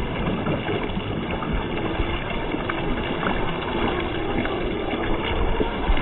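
Wind buffeting the microphone, with the faint whine of a radio-controlled crawler's electric motor as it drives through mud; the whine is plainest in the middle.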